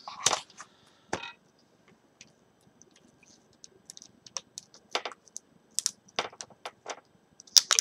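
Light plastic clicks and taps as a replacement laptop LCD panel and its display cable are handled and plugged together. There is a handling sound at the start, a single click about a second in, scattered ticks from about four seconds on, and the loudest cluster of clicks near the end.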